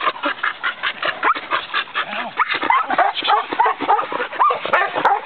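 A dog barking rapidly and repeatedly, about two to three short barks a second, starting about a second in.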